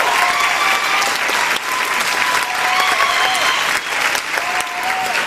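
Audience applauding in a theatre, dense and steady clapping with voices whooping and cheering over it.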